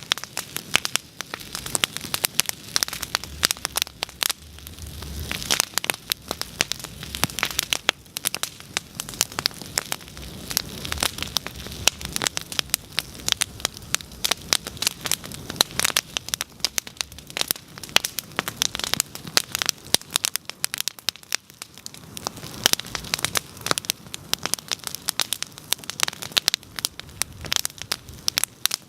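Bonfire crackling, with dense, irregular pops and snaps.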